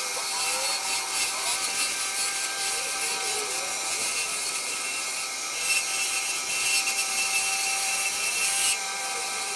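Wood lathe running with a steady motor hum and whine while a hand-held turning tool cuts the spinning wooden dowel. The cutting makes a continuous scraping hiss as the pin on the dowel's end is turned down.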